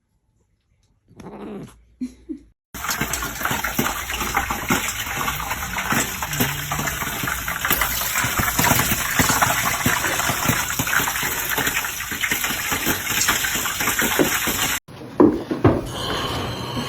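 Running water, a steady rush like a tap or shower, lasting about twelve seconds and cutting off suddenly near the end.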